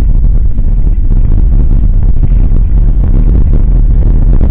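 Mountain bike with knobby tyres rolling over a gravel track: a loud, steady low rumble, heavily buffeted by wind on the bike-mounted camera's microphone.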